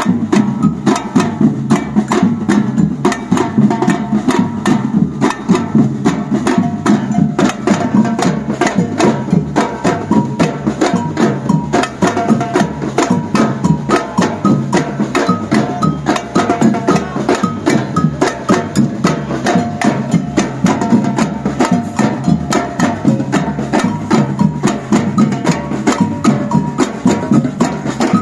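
Batucada percussion band playing a fast, steady drum rhythm: deep drums under a dense run of sharp, quick strokes.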